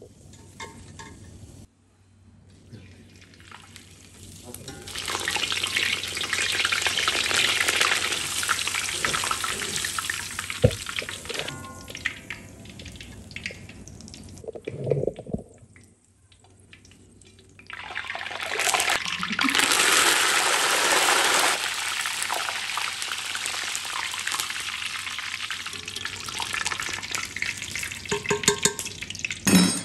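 Green chillies and then curry leaves deep-frying in hot oil in an iron kadai. There are two long stretches of loud, crackling sizzle: the first from about five seconds in until fourteen, the second from about eighteen seconds in until near the end. Between them a wire strainer clatters briefly against a steel pot.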